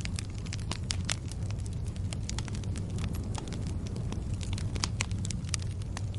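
Wood fire crackling: many sharp, irregular pops and snaps over a steady low rumble of burning.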